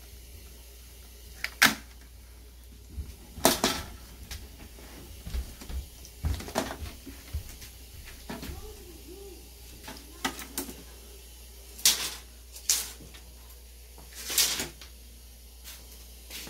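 Irregular sharp clicks and knocks of objects being handled, about a dozen spread unevenly through, the loudest near the start, in the middle and about three-quarters of the way in.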